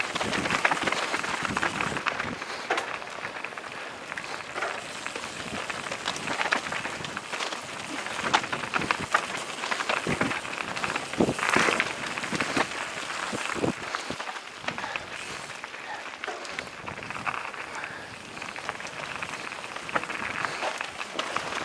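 Mountain bike riding fast down a dirt trail: tyres crackling over dry leaves and loose soil, with frequent sharp knocks and rattles from the bike over bumps.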